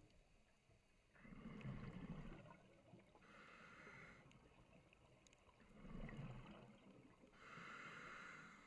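Scuba diver breathing through a regulator underwater, muffled by the camera housing: two breaths, each a steady hiss of drawn air followed by a rough bubbling exhale.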